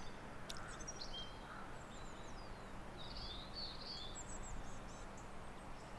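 Small birds chirping and calling, several short high chirps and a falling whistled note, over faint steady outdoor background noise.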